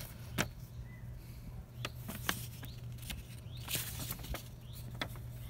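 Pages of a paper instruction manual being handled and turned: soft rustling with scattered small clicks and taps, over a low steady hum.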